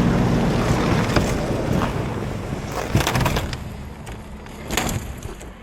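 An engine running with a steady hum, growing fainter over the few seconds, with a few sharp knocks along the way.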